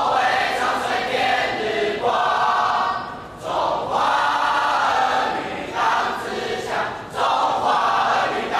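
A class of boys singing a military song together as a choir, in several phrases with short breaks between them.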